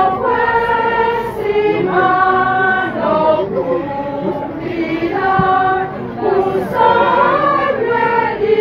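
A choir singing a church hymn in slow, held notes, several voices together.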